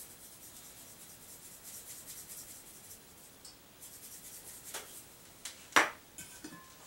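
Salt sprinkled from a small shaker over vegetables in a slow cooker, a faint light rasping. Near the end come two sharp clicks as the shaker is set down on the countertop.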